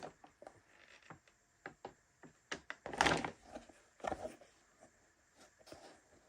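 Handling noise from a large RC tire and its packaging: scattered light knocks and clicks, with a louder brief rub or rustle about three seconds in and a knock about a second later.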